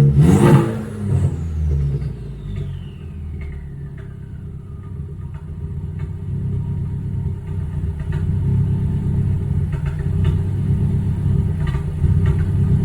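Ford Focus four-cylinder engine running rough with a misfire, logged by the tuner as cylinder 3. It is loudest in the first second, then drops back to an uneven low drone with a high whine that falls away over several seconds, and the drone grows a little louder later on.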